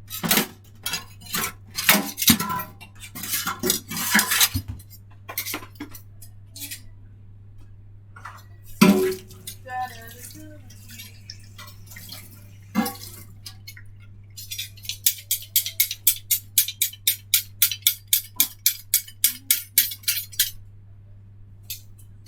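Kitchen dishes and cutlery clattering and knocking, with one louder knock about nine seconds in. Near the end comes a run of quick, even strokes, about five a second, lasting several seconds. A steady low hum runs underneath.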